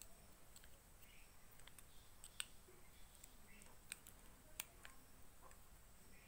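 Faint scattered clicks of a selfie stick's plastic phone clamp and metal wing screw being handled and fitted together, with sharper clicks about two and a half and four and a half seconds in.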